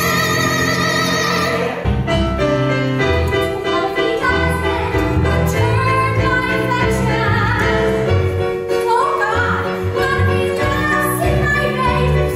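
Musical theatre number: several voices sing with a small live band of keyboard, bass, violin and guitar. A held, wavering note opens it, and the bass and fuller band come in about two seconds in under the continuing singing.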